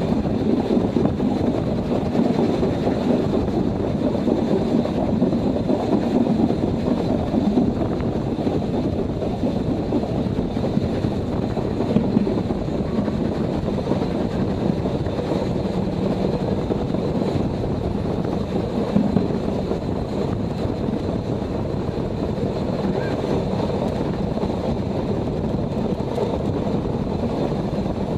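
Steady rumble of a 750 mm narrow-gauge train rolling along the track, heard from an open-air carriage, with a couple of sharper knocks partway through.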